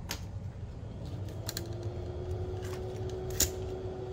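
Small clicks and taps of a USB-C cable and loose charging port being handled and plugged together, with one sharper click about three and a half seconds in. A faint hum rises slightly in pitch about a second in and then holds steady.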